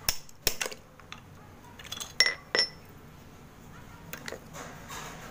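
Dry multani mitti (Fuller's earth) clay slabs being worked with a knife: a series of sharp clicks and clinks, some with a brief ringing, as pieces snap and the blade knocks against them. Softer crumbling follows near the end.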